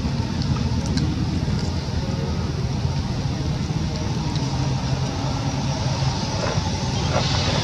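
Steady low rumble of road traffic, with a faint, even engine hum.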